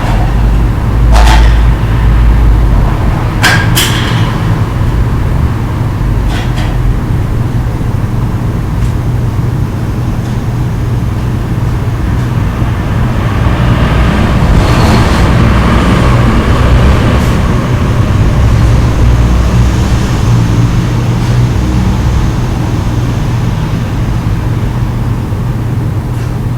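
Steady low mechanical hum from a gas water heater running, with a few sharp knocks in the first seven seconds and a louder rush of noise around the middle.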